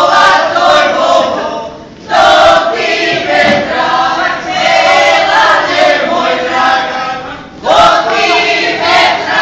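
A group of singers, mostly women, singing a Šokac kolo song loudly and unaccompanied in full voice, in phrases that break off briefly about two seconds in and again near the end.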